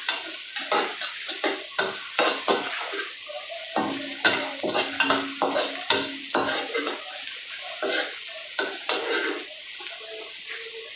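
Garlic frying in hot oil in a pan, sizzling steadily while a spatula stirs it with irregular scrapes and clinks against the pan; the stirring stops about nine and a half seconds in, leaving only the sizzle.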